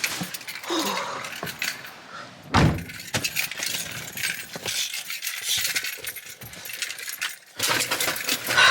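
Jangling and clinking, like keys and small objects being handled, with one heavy thump about two and a half seconds in.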